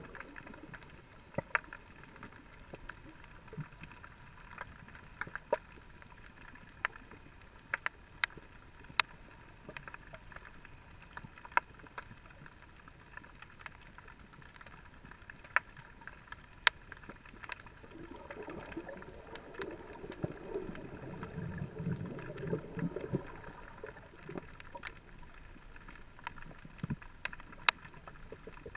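Underwater sound picked up through a GoPro's waterproof housing: a faint steady hiss and hum with scattered sharp clicks and ticks, and a louder, rougher low stretch from about 18 to 24 seconds in.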